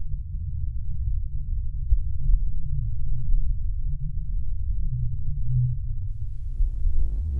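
A deep, low bass drone with nothing higher above it, wavering slightly in loudness. Faint electronic music with a pulsing beat fades in near the end.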